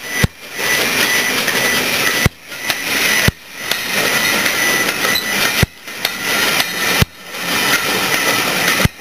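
Passenger coaches behind a steam locomotive rolling past close by. It is a loud, noisy rush, broken every second or two by brief drops and sharp clicks.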